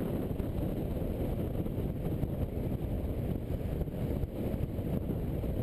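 Steady low wind rumble on a GoPro's microphone riding on a moving motorcycle, mixed with the motorbike's running and road noise.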